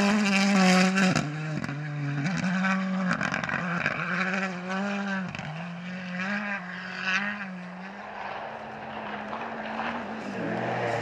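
Hyundai i20 rally car's engine at high revs on a gravel stage, its pitch dropping and climbing again several times as the driver shifts and lifts, with gravel spraying off the tyres early on; it fades as the car pulls away. Near the end a second rally car's engine, a Lancia Delta Integrale, comes in lower.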